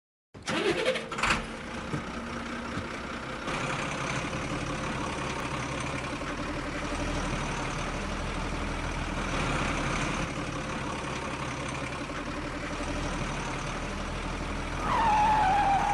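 Truck engine running steadily, laid over footage of a push-along plastic toy truck that has no motor of its own. Two short loud sounds come in the first second or so, and a loud falling whine sets in near the end.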